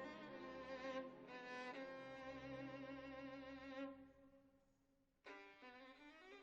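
Background music: a slow melody of long held notes with vibrato. It fades out about four seconds in and a new phrase begins just after five seconds.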